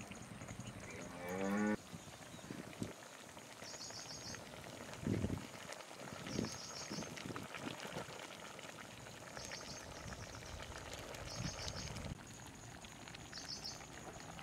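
A cow moos once, a short call about a second in. Short high chirps recur every couple of seconds, and a few dull thumps come midway.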